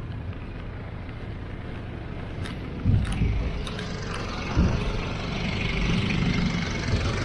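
Street traffic: a motor vehicle running close by with a low rumble, its noise swelling from about three seconds in, with two low thumps about three and four and a half seconds in.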